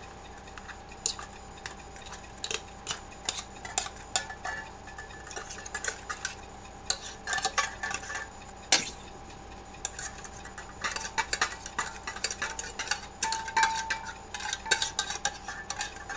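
Metal fork scraping and clinking against the inside of a tin can and a steel pot, as canned chicken is flaked out into the soup. The clicks and scrapes are irregular, with one sharp clink, the loudest, about nine seconds in.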